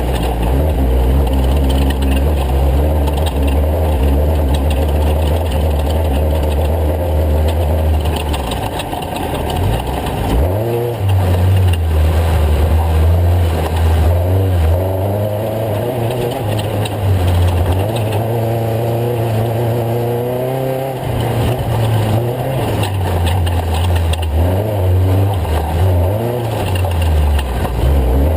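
Off-road race truck engine driving hard with a steady low drone. Its pitch rises and falls as it revs, about ten seconds in and again for a few seconds past the middle.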